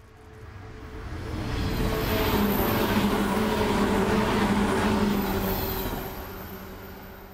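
JR 117 series electric multiple unit passing at speed: its MT54 DC traction motors hum loudly over the rumble of wheels on rail. The sound builds over about two seconds, holds loud for about three, then fades as the train goes by, the motor tone dropping slightly in pitch as it passes.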